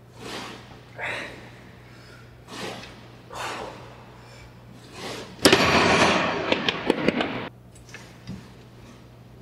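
A man breathing hard after a set: about five heavy exhalations a second or so apart. About halfway in, a louder rough noise with sharp clicks in it lasts about two seconds and stops suddenly.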